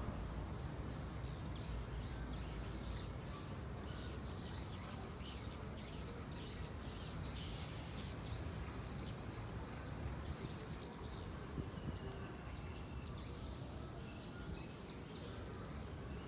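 Swiftlets chirping, many short high chirps in quick succession, thickest in the middle stretch, over a steady low rumble.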